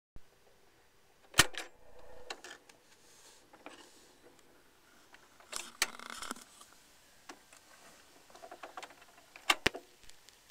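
Turntable being set going to play a 45 rpm single: scattered mechanical clicks and handling noises, the sharpest about a second and a half in and a close pair of clicks near the end.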